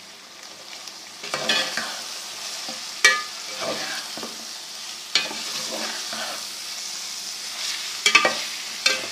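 Onions and minced meat sizzling as they fry in a pan, growing louder about a second in. The mixture is being stirred, with a few sharp scrapes and knocks of the utensil against the pan.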